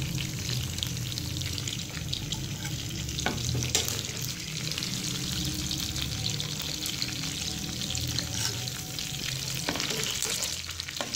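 Masala-coated fish pieces sizzling and crackling in shallow oil in a non-stick pan over a low hum. A few scrapes and knocks come from a slotted steel spatula as the pieces are lifted out.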